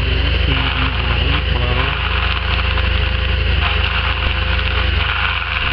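Steady drone of road-work engines: a skid-steer loader's engine running, with a backpack leaf blower's small engine and rushing air.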